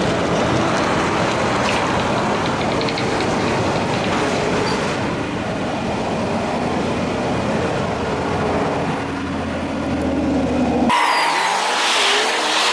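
A semi-truck with a box trailer drives past close by: steady diesel engine and tyre noise with a low rumble. The sound cuts off abruptly about eleven seconds in.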